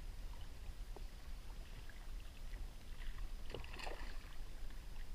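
Water lapping against a kayak hull, with a low rumble. About three and a half seconds in comes a brief splash as a small hooked blue runner thrashes at the surface.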